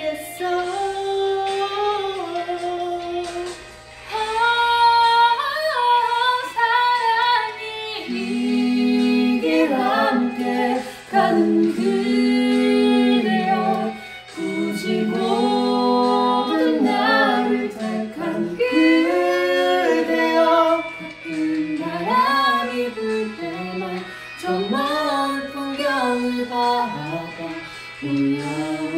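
Mixed group of women's and men's voices singing a slow Korean ballad together in harmony, with a woman's voice most prominent and no instruments clearly heard. Long sustained notes are broken by short breaths between phrases.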